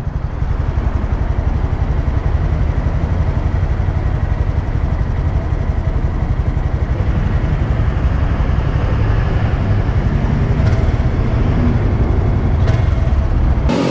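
Small motorcycle engine idling, a steady low rumble that changes abruptly near the end.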